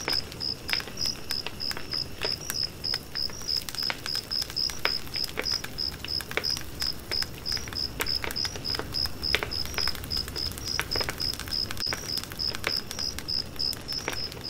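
An insect chirping in a steady, evenly spaced series of high pulses, about three a second, with scattered sharp clicks throughout.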